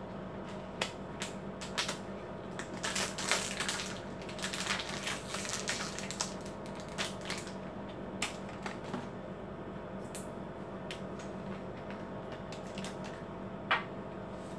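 Plastic crinkling and clicking from handling an Epson 001 ink bottle and its clear plastic cap, with a dense stretch of crinkling from about three to six seconds in and scattered single clicks elsewhere.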